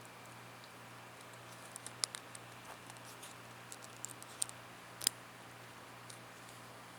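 Small metallic clicks and scratches of a gas ring being worked onto an AR-15 bolt by hand. The ticks come irregularly, with the sharpest click just after five seconds in.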